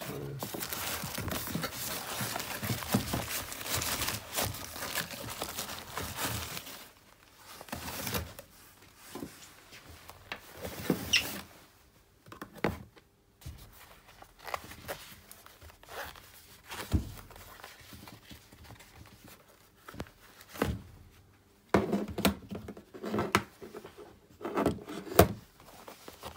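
Packaging being handled: a few seconds of rustling and crinkling of wrapping material, then scattered knocks and clicks as items are put down on a wooden table, with more rustling and knocks near the end.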